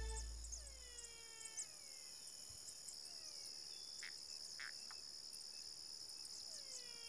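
Background music fading out, leaving the faint steady high-pitched chirring of crickets. An animal's drawn-out falling call is heard three times over it, with a couple of short chirps about halfway through.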